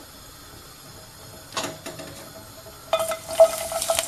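Broccoli florets dropped into hot oil in a non-stick wok. After a quiet start and a single knock about one and a half seconds in, a sudden sizzle breaks out about three seconds in, with sharp clatters as the pieces land in the pan.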